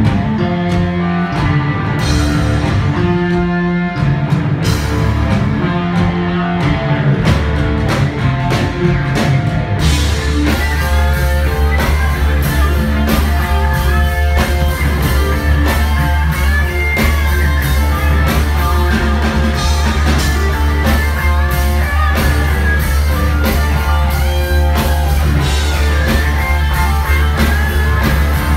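Live rock band playing, electric guitar leading. About ten seconds in the drums and a steady bass come in and the full band plays on.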